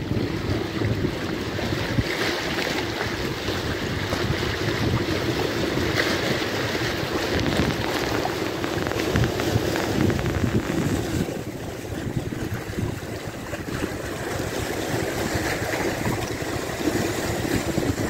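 Small sea waves breaking and washing over rocks along a rocky shore, a steady rushing surf, with wind buffeting the microphone.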